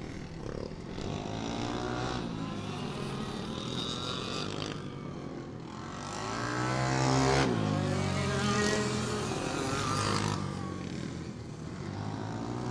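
Several racing go-kart engines running at speed as the pack laps the track. One kart passes close about seven seconds in, its engine note rising and then dropping as it goes by, the loudest moment.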